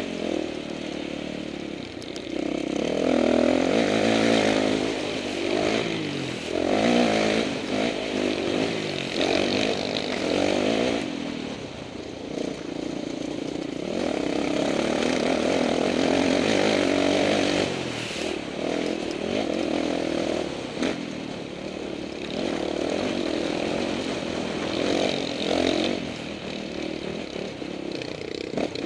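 Dirt bike engine being ridden hard, revving up and down again and again as the throttle is opened and backed off every second or two.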